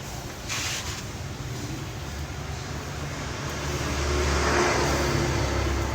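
A motor vehicle's engine rumble that swells about four seconds in, over a steady low hum, with a short hiss about half a second in.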